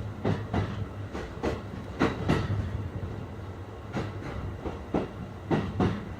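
E531 series electric train running slowly under a strong-wind speed restriction, heard from inside the car: a steady rumble with pairs of wheel knocks over the rail joints, about five pairs in a few seconds, the two knocks in each pair about a quarter second apart.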